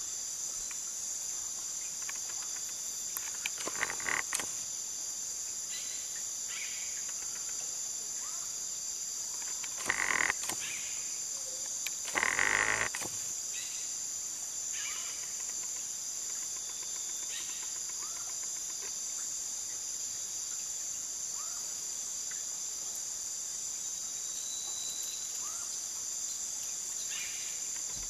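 Amazon rainforest insects and frogs: a steady high-pitched insect drone, with scattered short chirps and three louder, brief calls at about 4, 10 and 12 seconds in.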